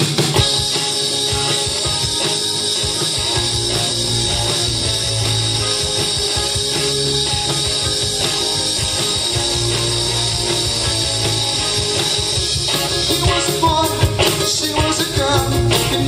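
Live rock band playing a song on electric guitar, electric bass, drums and keyboard, loud and steady throughout.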